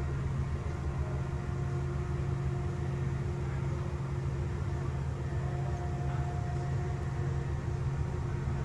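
Liebherr R 9300 mining excavator's diesel engine and hydraulics running steadily as the bucket is moved, heard from inside the operator's cab: a constant low hum with a few fixed tones above it.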